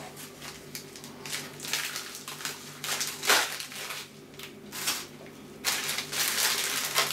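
A small white mailing packet handled and torn open by hand: scattered rustling and crinkling, with a sharp crackle about three seconds in and a longer spell of rustling and tearing near the end.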